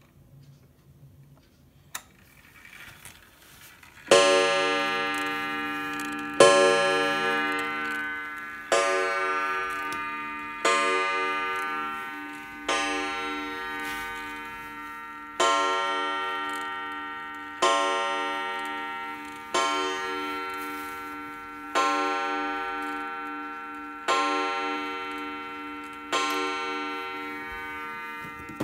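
Concordia 30-day wall clock striking the hour: eleven ringing strikes about two seconds apart, each dying away before the next.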